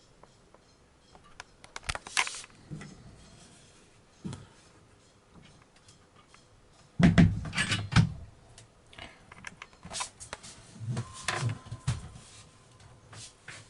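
Scattered knocks, clicks and low thumps of someone moving about inside a yacht's cabin, the heaviest thumps about seven to eight seconds in.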